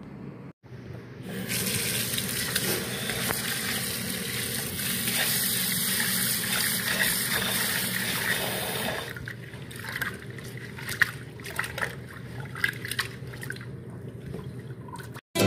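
Kitchen tap running into a plastic bowl of rice in a stainless steel sink while a hand swishes the grains to wash them. The tap stops about nine seconds in, and the rest is intermittent splashing and sloshing of water in the bowl.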